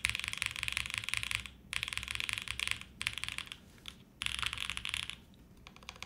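Mechanical keyboard typing: a Line Friends TKL with a top-mounted polycarbonate plate, no foam, factory-lubed JWK V One switches and GMK keycaps, typed in several quick bursts of keystrokes with short pauses between them.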